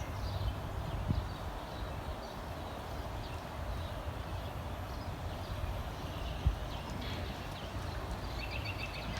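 Backyard songbirds singing faintly, with a quick run of repeated chirps near the end, over a steady low rumble. A single soft thump about six and a half seconds in.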